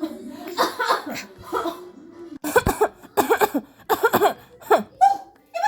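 A person coughing over and over in harsh fits, with a tight run of several coughs from about two and a half seconds in.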